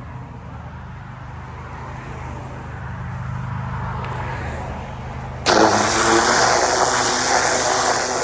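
Pressure washer running with a steady low hum. About five and a half seconds in, a loud high-pressure water jet from its oscillating tip starts blasting into the soil with a sudden, even hiss.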